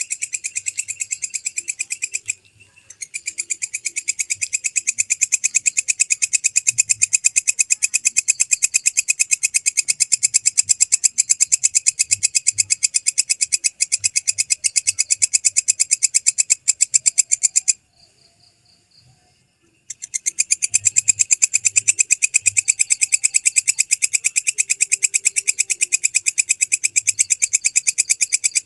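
Belalang kecek (walang kecek) katydid calling: a loud, fast, even train of high-pitched chirping pulses, broken by a short pause about two seconds in and a longer pause of about two seconds past the middle.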